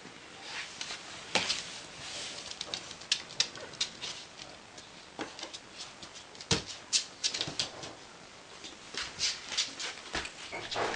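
Border Collie puppies playing with a plush toy on a wooden floor: irregular clicks and knocks of paws and claws on the floor, with rustling of the toy's fabric.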